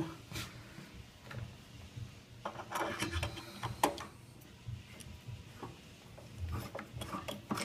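Allen wrench working the screws under an Aeron office chair's seat: scattered faint clicks, small knocks and scraping as the tool turns and the screws come loose.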